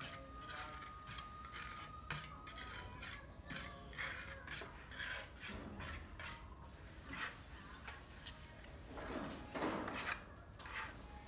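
A hand tool scraping or rasping a surface in quick repeated strokes, about three a second, with a longer, louder scrape near the end.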